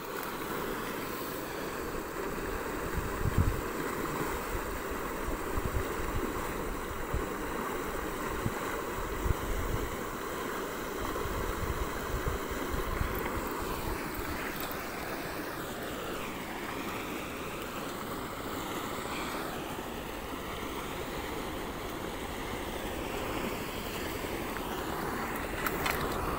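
Steady rush of wind and water, with gusts of wind buffeting the microphone.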